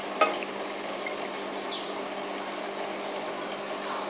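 Electric pump of a three-stage water filter running with a steady hum while filtered water is drawn from the outlet hose into a glass flask. A single sharp click about a quarter second in.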